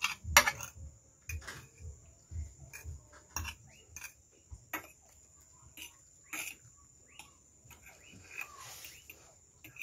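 Metal forks clicking and scraping against plates in short, irregular strikes, with close-up chewing and mouth sounds of people eating noodles.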